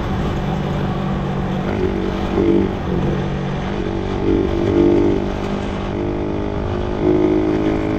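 Motorcycle engine running at road speed, heard from the bike itself, with wind and road rush over it. The engine note swells briefly a few times as the throttle is worked.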